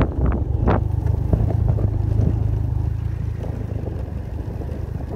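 Motorcycle engine running at low speed while riding over a rough dirt track, with a few sharp knocks and rattles from bumps in the first second.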